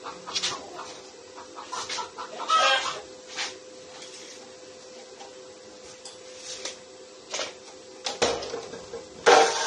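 Scattered short clinks and knocks as pieces of square steel tubing are handled, then, a little before the end, an abrasive chop saw starts up suddenly and runs loud and steady, the loudest sound here.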